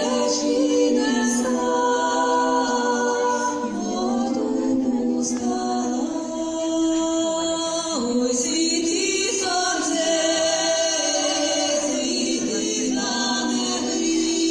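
A choir singing in Ukrainian folk style, largely unaccompanied, moving between long held notes.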